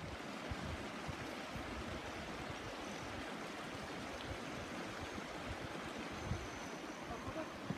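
Shallow rocky mountain creek running steadily over stones: an even rushing of water.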